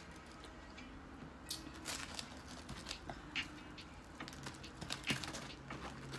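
Close-miked eating sounds: chewing, and crisp fried breading on whiting fish crackling as the pieces are torn apart by hand. The crackles come as scattered short clicks.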